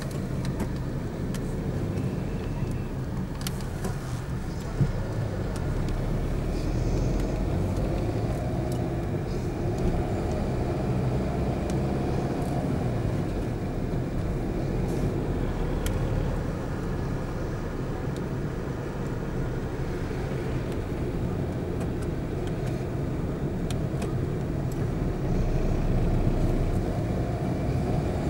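Car driving at low speed, heard from inside the cabin: a steady low rumble of engine and tyres on the road, with one short knock about five seconds in.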